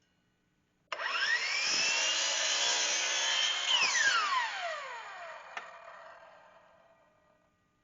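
A woodworking power saw is switched on and its motor whines up to speed within a second. It runs steadily for about three seconds without cutting, then is switched off and winds down, its pitch falling away. There is a sharp click partway through the wind-down.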